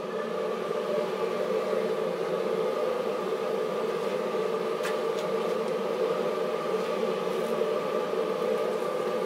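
High-output jet wok burner running on high under a wet carbon steel wok, a steady rush of flame with a steady hum in it. It swells up over about the first second, then holds level while the washed wok heats to dry before seasoning.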